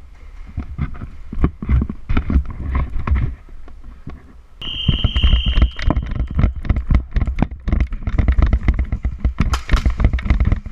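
Indoor airsoft skirmish: a fast, irregular string of sharp clacks and knocks, most likely airsoft gunfire and BB hits, with heavy low thumps. The noise comes in two spells with a short lull between them, about three to four and a half seconds in. A brief steady high tone sounds just after the lull.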